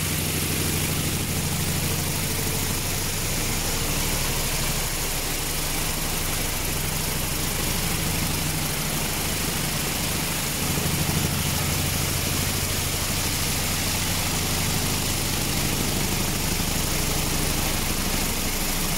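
Vibratory polishing machine running steadily with wet polishing media: a low motor hum under a constant hiss of the media churning in the bowl.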